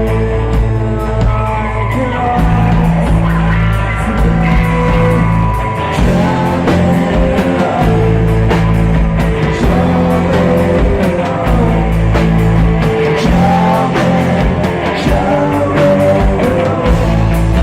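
A rock band playing a song live, with sustained bass notes under a steady beat.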